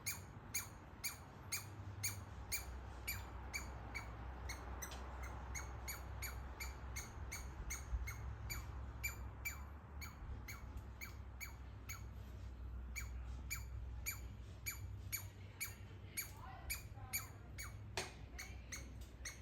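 Baby squirrel calling: a steady run of short, sharp chirps, each falling quickly in pitch like a 'laser' zap, repeating about twice a second. Near the end a few lower sliding calls come in.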